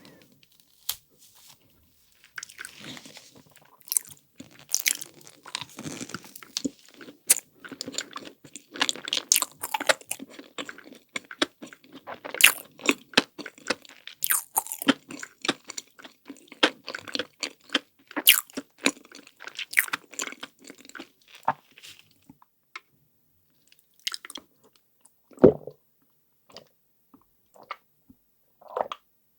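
Close-miked eating of chocolate desserts: crisp crunching and chewing in quick, dense crackles that thin out after about 22 seconds, with one louder low knock a few seconds before the end.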